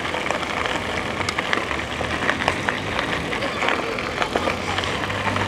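Electric bike rolling along a path: a steady rush of tyre and wind noise with frequent small clicks and rattles.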